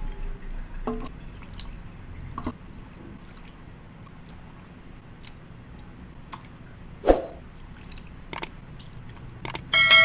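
Soup being ladled into a bowl: liquid dripping and splashing, with light clicks of the ladle against the bowl and one louder knock about seven seconds in. Near the end a bell-like ding rings out.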